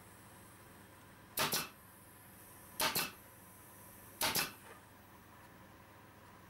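Pneumatic nail gun firing three times into a wooden beam, about a second and a half apart, each shot a sharp double crack.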